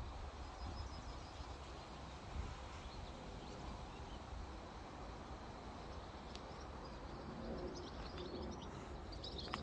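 Quiet outdoor ambience: a steady low rumble, with faint bird chirps now and then from about six seconds in, more of them near the end.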